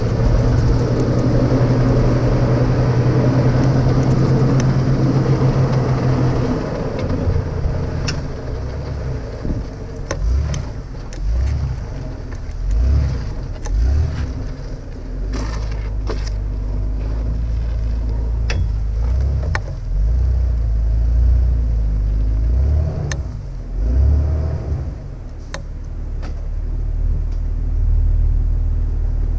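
Jeep Wrangler TJ engine running at low speed while it drags a chained tree trunk, a steady hum for the first few seconds, then a rumble that swells and surges repeatedly through the middle. Scattered sharp knocks come from the log and chain over the ground.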